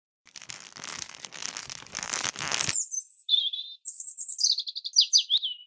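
A rustling, fluttering noise that grows louder for nearly three seconds, then a songbird singing: high chirps and a short trill, ending in a quick falling run of notes.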